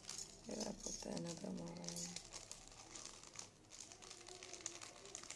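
Clear plastic jewellery packaging crinkling and rustling as it is handled.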